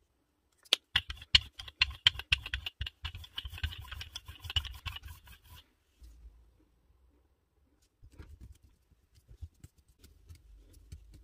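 Brayer rolling acrylic paint across a gel printing plate: a rapid run of clicks for about five seconds. Quieter taps and rubbing follow near the end as hands press a textured plate down onto the paint.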